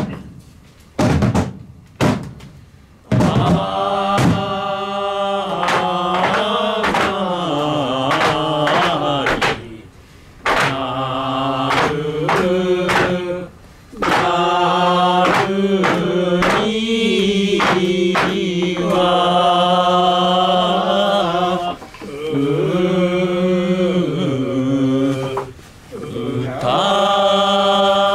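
Voices chanting a traditional Japanese folk song in long held notes, the pitch stepping between sustained tones with short breaks. A few sharp knocks come in the first three seconds.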